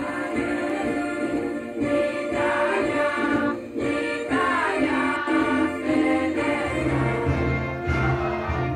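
A group of people singing a national anthem together over a recorded instrumental backing; a deeper bass part comes in about seven seconds in.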